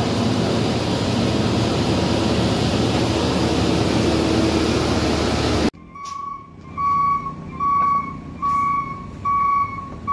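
Heavy diesel truck engine running loudly under load on a steep climb. Then, from about halfway in, a truck's reversing alarm beeps steadily, a little faster than once a second, as the Fuso capsule tanker, out of power on the grade, stands stalled on the hairpin.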